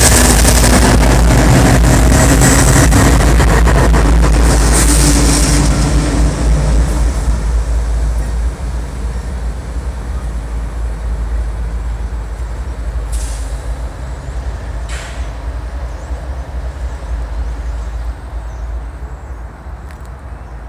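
Two GE diesel freight locomotives, a GEVO-12 powered ES44AH and a 16-cylinder Dash 8-40CW, passing close by, very loud at first, then fading steadily as the train pulls away. Two short hisses come a little after the middle.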